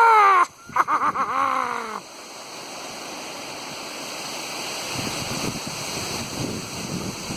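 A man's drawn-out vocal whoop that falls in pitch for about two seconds. Then steady wind in the trees and on the microphone, slowly growing louder, with low gusts buffeting near the end.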